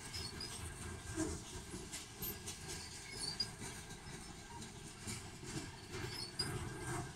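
Freight train of covered hopper cars rolling slowly past: a steady rumble of steel wheels on rail with scattered clicks and clacks.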